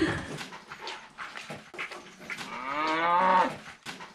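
Cattle mooing once, a call of about a second that rises and then falls, a little past halfway through, among small knocks and rustles of animals moving in the stall.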